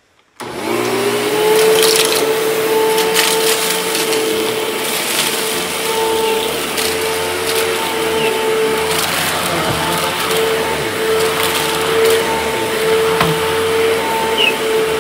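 Upright vacuum cleaner switched on about half a second in, its motor spinning up to a steady whine, then picking up spilled chicken feed, the grains crackling and rattling up through the machine.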